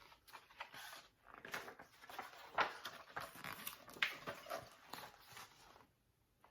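A person imitating a bear snoring: a string of irregular, rough, breathy noises that stop about six seconds in.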